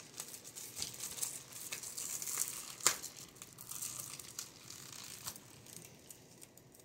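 Thin plastic shrink-wrap on a DVD case crinkling and tearing as it is peeled off by hand, with scattered sharp crackles; the loudest is about three seconds in.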